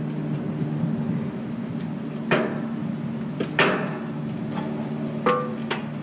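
Metal clicks and knocks of channel-lock pliers and the AC condenser fan blade's hub on the motor shaft, as the blade is twisted back and forth and worked off. Two sharper knocks come a little over a second apart near the middle, and a smaller one with a short ring near the end. A steady low hum runs underneath.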